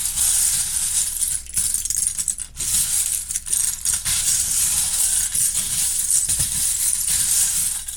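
Loose plastic Lego bricks rattling and clinking against each other in a steady, dense jumble of tiny clicks, as when a pile of pieces is stirred or poured.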